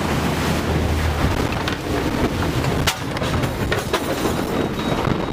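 Wave from a glacier calving crashing over a small boat: a loud, continuous rush of water, with several sharp knocks about halfway through as the boat and camera are thrown about.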